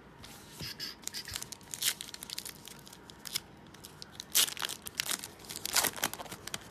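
Foil wrapper of a 2017 Chronicles baseball card pack being torn open and crinkled by hand, a run of irregular crackles, with the loudest rips about four and a half to six seconds in.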